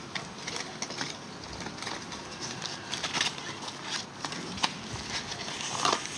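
Handling of a small cardboard cube box with a clear plastic insert: light rustling and scattered clicks as the puzzle cube is slid out, with a few sharper taps near the end.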